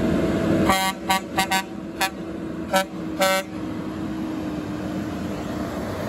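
Semi truck's horn sounded in a string of about seven short blasts, starting about a second in and ending about halfway, over the steady running of the truck's diesel engine as it pulls a heavy excavator on a lowboy trailer.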